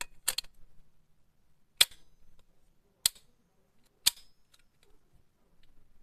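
Plastic DX Gigant Buckles snapping into the Gigant Container Buckle toy: four sharp clicks a second or so apart, the first a quick double click.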